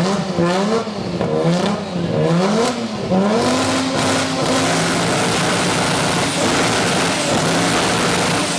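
Engine with a loud exhaust being revved: about four quick throttle blips, each rising and falling in pitch, then from about three seconds in the revs are held steady.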